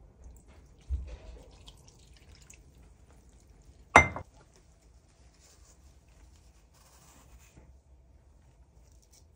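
Kitchenware being handled: a dull knock about a second in, then one sharp, ringing clink about four seconds in, with faint scattered ticks between.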